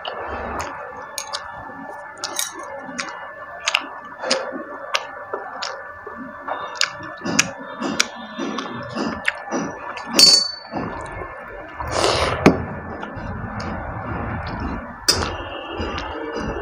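Close-up eating sounds: chewing and smacking with many small wet clicks, as fingers mix watered rice in a steel plate. A single ringing metal clink about ten seconds in.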